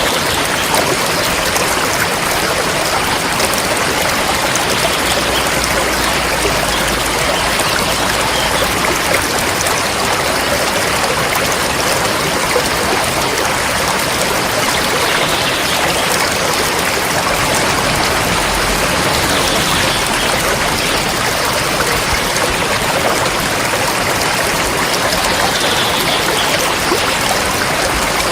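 A river flowing steadily, its rushing water making an even, unbroken noise.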